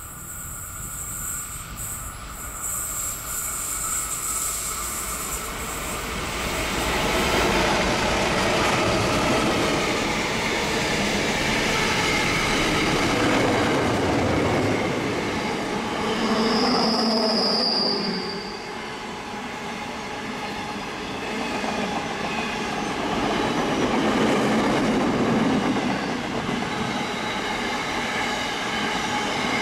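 A freight train hauled by NR and 82 class diesel-electric locomotives passes close by. The sound builds over the first several seconds as the train arrives, then the wagons roll past with steady wheel and rail noise. Just past halfway there is a brief high-pitched wheel squeal.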